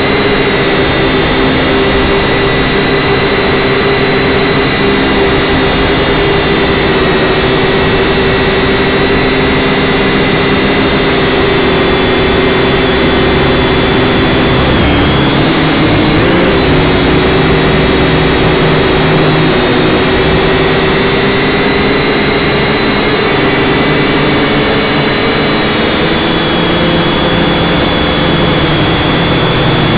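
Syma X5C quadcopter's four small brushed motors and propellers whining steadily in flight, heard close up through its onboard camera. The pitch dips and wavers briefly about halfway through, then settles again.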